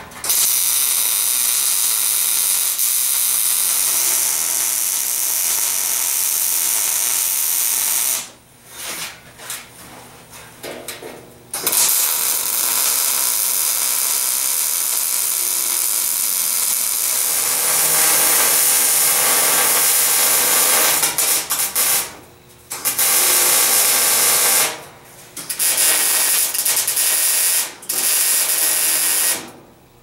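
Wire-feed welder arc hissing steadily as it welds strips onto a steel water heater tank. It goes in several runs: a long one of about eight seconds, a pause of about three seconds, a ten-second run, then three shorter runs with brief breaks between them.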